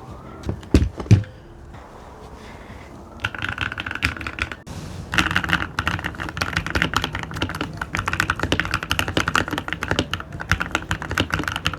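Computer keyboard being typed on in fast, dense runs of keystrokes, with a brief pause between two runs. Two loud thuds come about a second in, before the typing starts.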